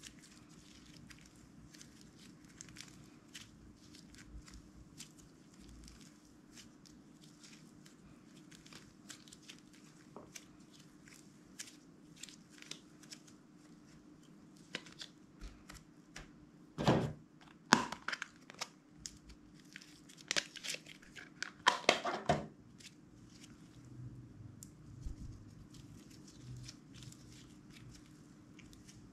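Hands squishing and stretching slime: a steady stream of small sticky clicks and crackles, with louder clusters of popping squelches for several seconds past the middle.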